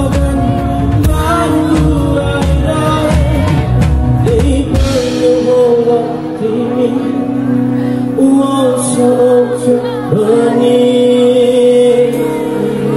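Live band music with a man singing into a microphone. About five seconds in, the heavy low end drops away, leaving the voice over held notes.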